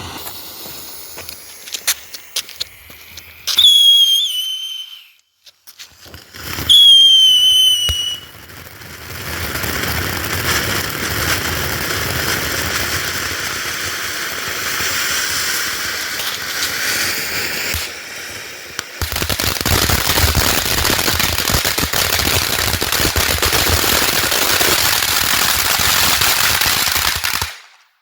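"Chico Chico" firework fountain: a few pops and two short falling whistles, then a steady hissing spray of sparks. About two-thirds of the way in the spray gets louder and fills with crackling, then it cuts off abruptly near the end.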